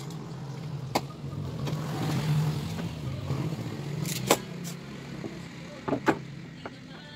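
A motor vehicle engine runs steadily in the background and swells louder around the middle. Over it come several sharp knocks and clicks, the loudest about four seconds in and a close pair near the end, as the utility knife and foam pieces are handled on a wooden table.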